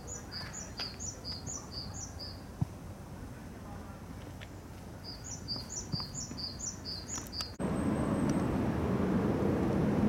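A small songbird singing two runs of a repeated high two-note phrase, about two to three phrases a second, over outdoor background noise. About three-quarters of the way through, a loud steady low rumble of a passing airplane sets in abruptly.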